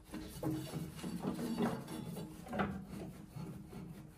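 Craftsman LT1000 mower deck blade spindle turned by hand, its bearings grinding in uneven rasping strokes: the spindle bearings are worn out and stiff.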